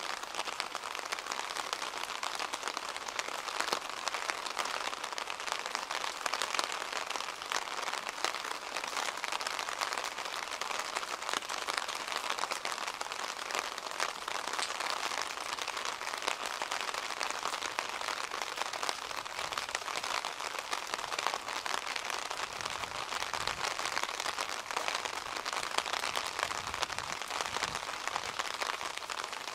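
Steady rain falling, a dense patter of drops. A faint low rumble comes and goes in the second half.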